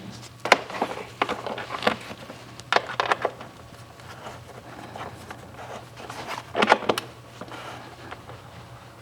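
Scattered short clicks and knocks of things being handled, several in the first three seconds and a pair of louder ones about seven seconds in, over a faint steady hum.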